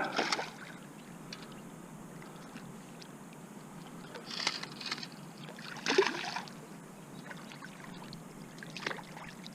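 Water splashing and sloshing a few times as a hooked carp thrashes near the surface, over a faint steady background hiss.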